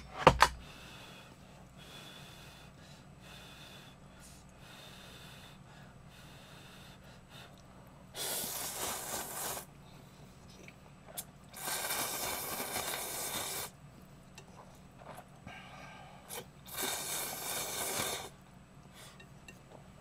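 Slurping of Shin Ramyun instant noodles: three long, noisy slurps of one and a half to two seconds each in the second half, with a sharp click right at the start.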